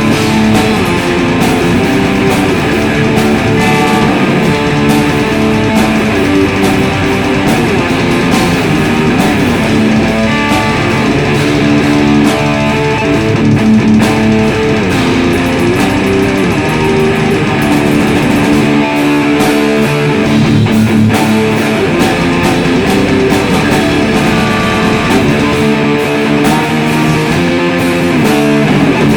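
Black metal instrumental: electric guitar riffing over drums, loud and dense throughout.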